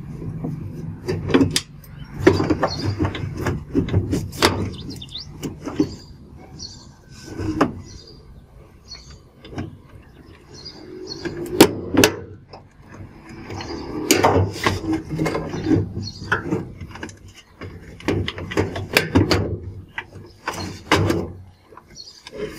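Screws being turned out with a screwdriver and the plastic top and control panel of a Whirlpool washing machine being worked loose, with repeated sharp clicks, squeaks and scraping in uneven clusters.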